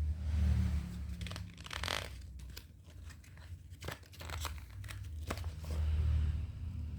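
Crinkling and rustling with several sharp clicks as paper or plastic is handled, over a steady low rumble.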